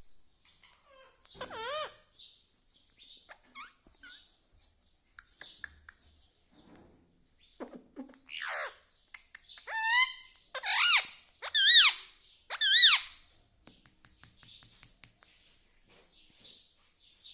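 Ring-necked parakeet calling: soft chirps and clicks with a warbling call near the start, then a run of loud, wavering squawks about a second apart past the middle.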